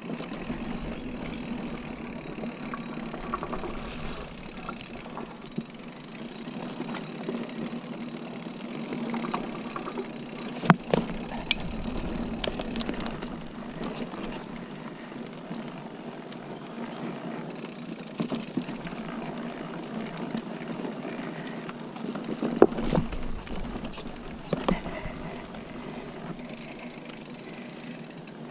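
Liv Hail mountain bike rolling over a dirt singletrack: steady tyre-on-trail noise with scattered clicks and knocks as it goes over bumps. The sharpest knocks come about eleven and twenty-three seconds in.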